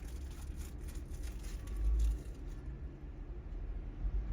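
Faint low rumble of a car on the move, heard from inside the cabin, swelling briefly about two seconds in.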